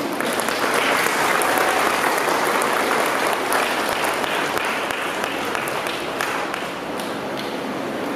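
Audience applauding. The clapping swells about a second in and tapers off towards the end.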